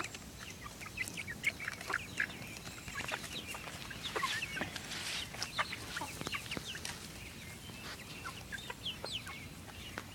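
A flock of chickens clucking with many short, scattered calls and clicks while they feed on cabbage.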